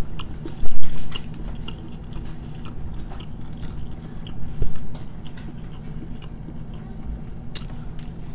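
A woman chewing a mouthful of food with her mouth closed, close to the microphone, with small wet clicks throughout. Two louder dull knocks come about a second in and again around the middle.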